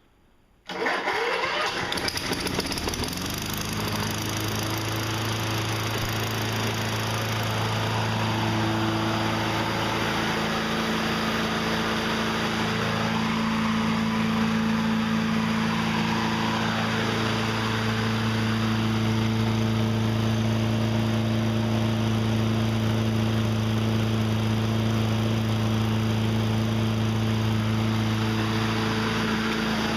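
Toro electric-start push mower engine starting on the key almost at once, revving up over about two seconds and then running steadily at speed. It now starts because the straightened kill-switch bracket lets the ignition make spark again; before, it only spun over.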